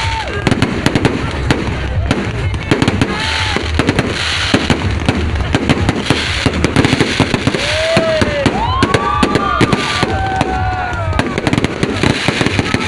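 Fireworks going off in rapid, continuous succession, sharp bangs and crackles one after another, with a few rising-and-falling whistling tones near the middle.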